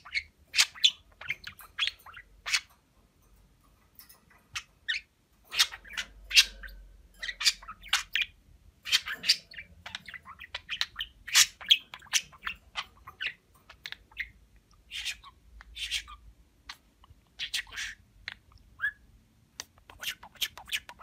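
Male budgerigar chirping and chattering in quick, scratchy calls, with a short pause about three seconds in.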